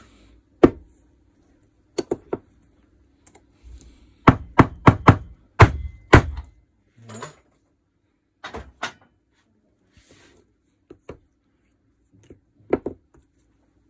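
Sharp hammer blows knocking a stuck firing pin out of the barrel of a disassembled DeWalt DCH333 rotary hammer. There are about a dozen separate knocks, with a quick run of five or six in the middle.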